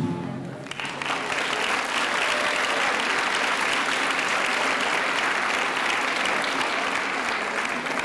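An audience of parents applauding, starting just under a second in after a song ends and continuing steadily.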